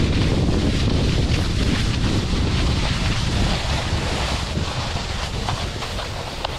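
Wind buffeting the microphone of a snowboarder riding downhill, a heavy low rumble under a steady hiss of snow, easing off toward the end.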